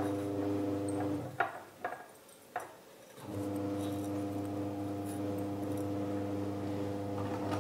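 A steady buzzing hum that cuts out about a second in and comes back about two seconds later. In the gap there are a few light clinks of a coiled whisk against a glass bowl.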